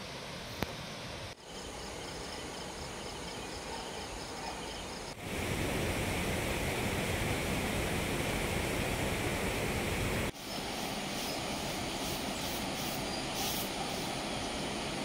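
Steady rushing outdoor noise, changing abruptly at cuts about one and a half, five and ten seconds in, loudest between the second and third cuts.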